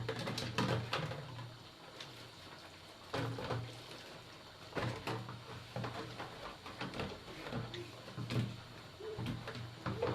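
Kitchen handling sounds: scattered light knocks and clicks, several a second at times, with a faint low hum underneath.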